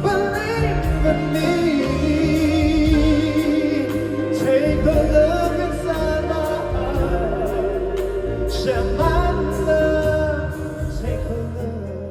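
A pop ballad plays: a singer holds long, wavering notes over the band's bass and chords. The music fades down near the end.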